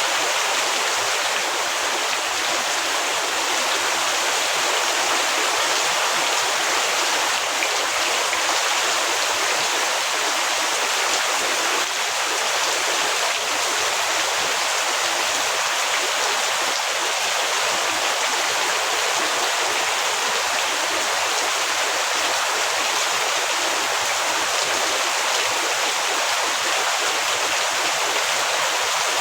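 Heavy rain falling as a steady, even hiss with no breaks or distinct drops standing out.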